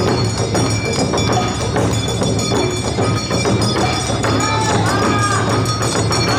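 Awa odori music played live: taiko drums and a ringing kane hand gong keep a dense, driving rhythm, and a high melody line slides up and down in pitch about four seconds in.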